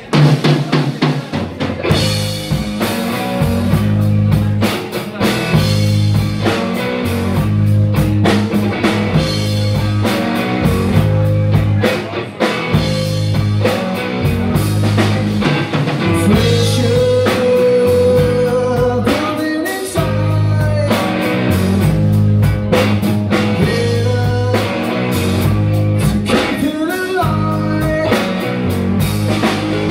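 Three-piece rock band playing a slower song live: electric guitar, bass guitar and drum kit, with a man singing lead.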